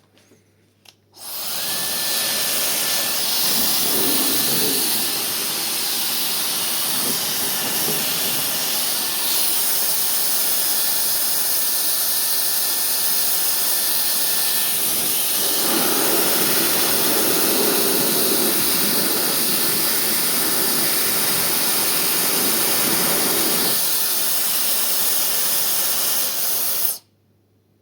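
Xiaomi High-speed Ionic Hair Dryer switched on and running: a loud, steady rush of air with a faint high whine over its first half. Its sound shifts a few times, most clearly halfway through, and it is switched off about a second before the end.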